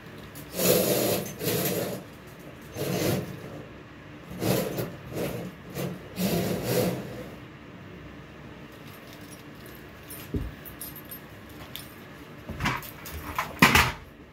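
Housekeeping handling noises: a run of short rubbing, brushing and rustling strokes, then a quieter stretch and a few sharp knocks and clatters near the end.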